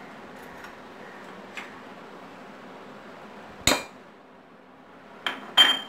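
Chopped tomatoes tipped from a bowl into a stainless steel mixer-grinder jar, giving sharp metallic clanks with a short ring: one a little past halfway, then two quick ones near the end.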